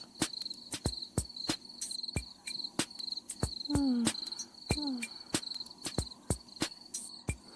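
Night ambience of crickets chirping in a steady pulsing trill, over many sharp clicks. Two short calls falling in pitch come about four and five seconds in.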